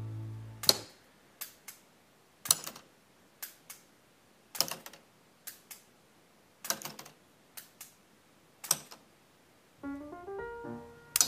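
A LEGO Technic rubber band gun shooting at a LEGO Technic flip-down target: about eight pairs of sharp plastic clicks, roughly one a second, as bands are fired and strike the target, knocking its flaps over. Piano-like background music fades out in the first second and comes back near the end.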